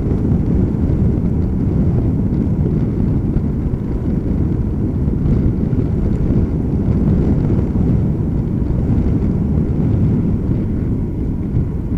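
Wind buffeting the microphone of a bicycle-mounted camera while riding along a paved road, a loud, steady low rush.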